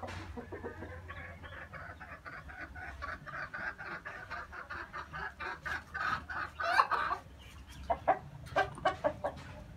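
Chickens clucking: a quick, even run of short clucks, about four or five a second, that grows louder for a moment, then a few separate, sharper clucks near the end.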